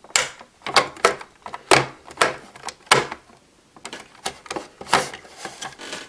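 Hard plastic clicking and knocking as a toy buckle is pushed and wiggled into the grooves of a plastic storage box, in an uneven string of sharp clicks and taps with short pauses between.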